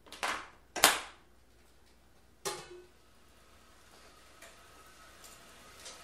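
Three sharp knocks in the first two and a half seconds, then the 2018 Wahoo Kickr direct-drive smart trainer running faintly under pedalling: a low, even whir with a faint steady tone and a few light ticks.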